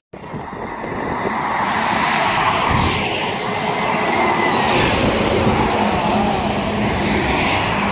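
Intercity coach bus driving past on a highway: engine and tyre noise build over the first couple of seconds as it approaches, then hold steady as it goes by.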